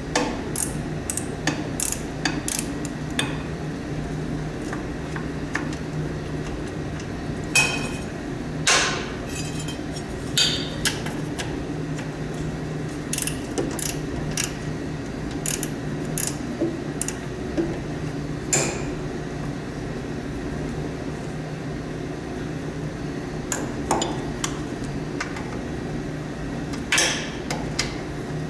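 Hand tools and metal parts clinking and knocking at irregular intervals while bolts are worked out of a snowblower's steel housing, over a steady low hum.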